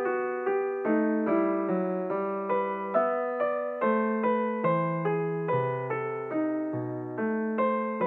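Solo piano background music: a gentle melody of notes struck about twice a second, each fading away after it is played.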